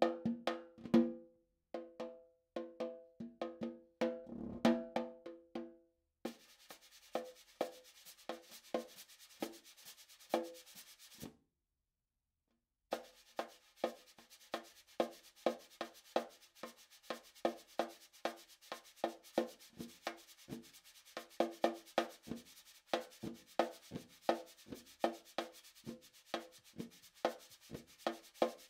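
Snare drum played with bare hands: quick strikes that ring at the drum head's pitches, stopping about six seconds in. After that a steady rubbing hiss on the drum head, with regular light strikes over it, breaks off for about a second and a half near the middle and then resumes.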